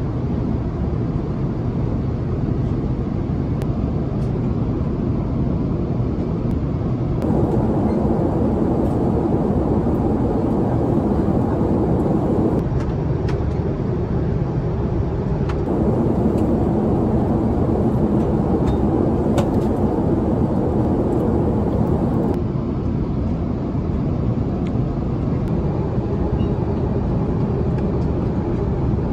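Steady roar of airflow and engines inside the cabin of an Airbus A350-900 in cruise, with a few faint clicks. The noise shifts in tone a few times.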